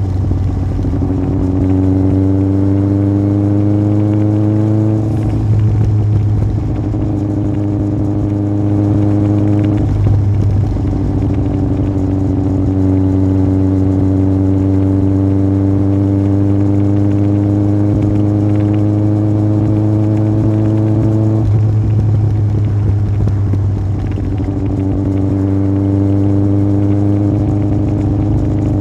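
Yamaha Fazer 1000's inline-four engine running through a MIVV aftermarket exhaust under way, its pitch climbing gradually under throttle. The pitch breaks off and picks up again about 5, 10 and 21 seconds in, as at gear changes or rolling off the throttle.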